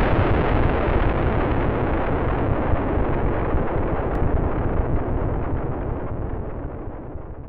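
Deep rumbling boom sound effect, its long noisy tail slowly fading away.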